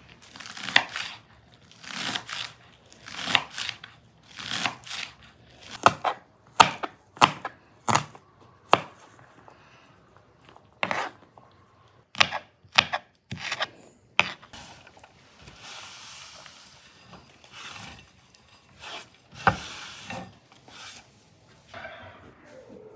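Kitchen knife slicing green onions on a bamboo cutting board. First come several longer slicing strokes about a second apart, then a run of sharp knocks of the blade on the board. A soft rustle and one more knock follow.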